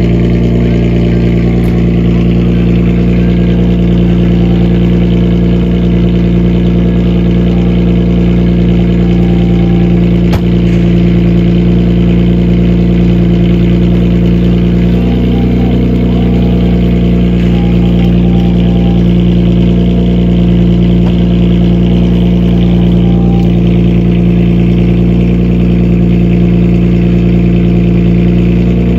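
Modified old Japanese sedan with a loud aftermarket exhaust, idling steadily. The low, even drone holds one pitch with only a slight shift about halfway through.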